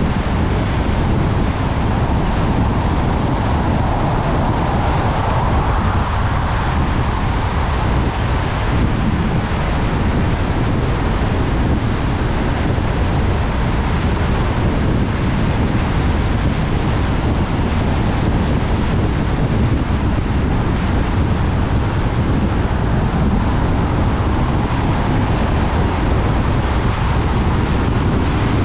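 Steady rushing noise of a car driving on a wet road in the rain, with a deep rumble underneath.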